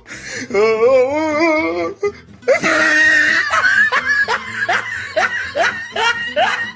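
Meme sound-effect clips: a warbling, wavering pitched sound, then from about two and a half seconds in a burst of laughter in quick repeated pulses.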